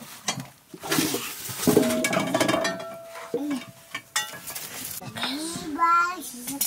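Metal cooking pots and a ladle clinking and knocking as they are handled, one giving a ringing tone that holds for about two seconds. A voice is heard near the end.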